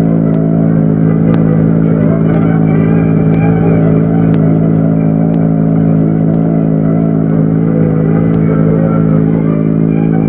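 Ford Tri-Motor's three radial engines running steadily as the airliner taxis on the ground, a loud, even drone on an old film soundtrack, with faint ticks about once a second.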